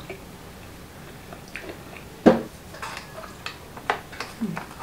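Clam and mussel shells and chopsticks clicking and knocking against a glass dish as seafood is picked out of a boil: a scattering of separate clacks, the loudest about two seconds in.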